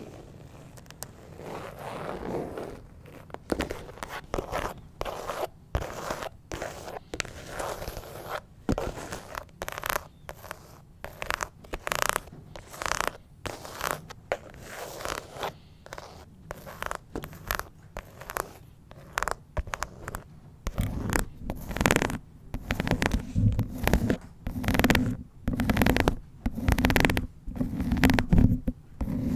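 Long fingernails scratching a phone case in quick, repeated strokes, which get louder and fuller about two-thirds of the way in.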